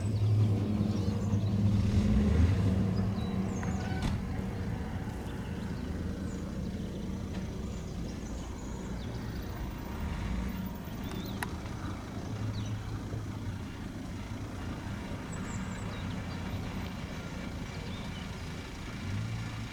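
Beechcraft King Air A90's twin PT6A turboprop engines and propellers droning with a low propeller hum as it climbs away after takeoff. The sound is loudest about two seconds in, then fades over the next few seconds to a fainter steady drone.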